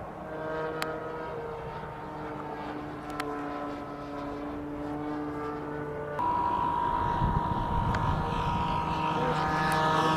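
Radio-controlled model airplane's motor and propeller running steadily in flight, with a sudden step up in loudness about six seconds in. Wind buffets the microphone shortly after.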